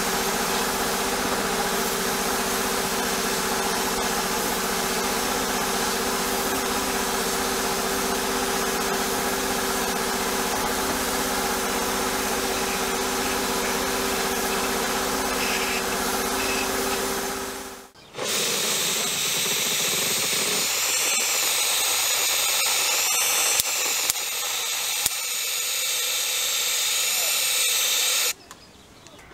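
Abrasive blasting in a sandblast cabinet: a steady hiss from the blast nozzle over a steady hum. About eighteen seconds in it cuts off, and a thinner air hiss with no low hum takes over, then stops about a second before the end.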